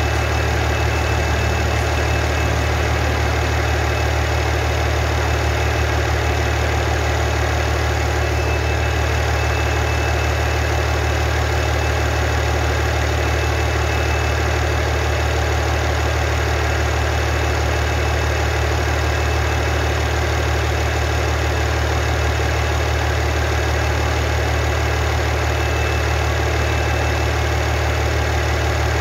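Rebuilt Cummins QSL 8.9 inline-six diesel engine idling steadily on its test run after overhaul.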